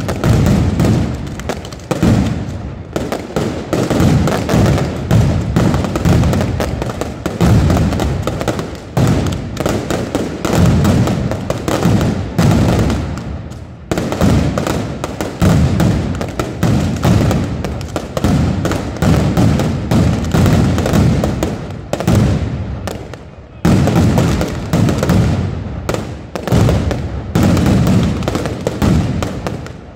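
Mascletà: a dense barrage of ground-level firecrackers exploding in rapid, pulsing volleys, with brief lulls about halfway through and again about three-quarters of the way in.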